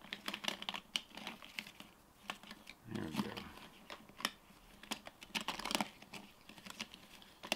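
Small items clicking and tapping against a small metal tin as they are packed into it, with light crinkling. A quick, irregular run of taps.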